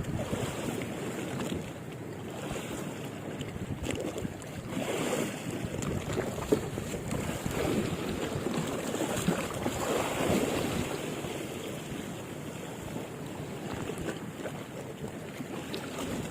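Wind buffeting the microphone over the steady wash of sea water, with gusts rising and falling.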